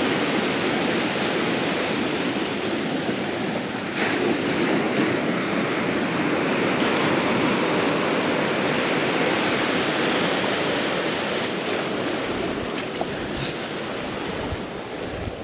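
Ocean surf breaking on a rocky shore at low tide: a steady wash of noise.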